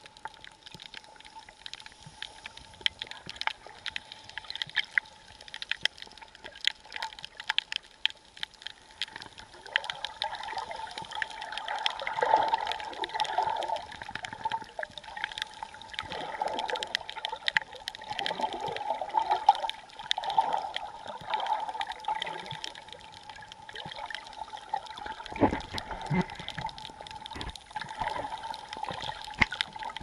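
Underwater sound through an action camera's housing: water gurgling and sloshing around it, with many small clicks and crackles, growing louder about ten seconds in, and a single low thump near the end.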